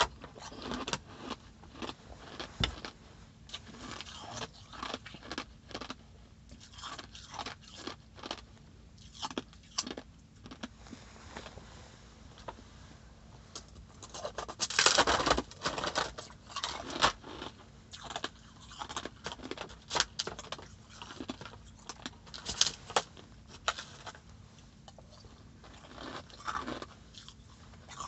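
Close-up crunching of blocks of packed crushed ice: scattered crackles and scrapes as fingers work the ice, and a loud run of bites and chewing about halfway through.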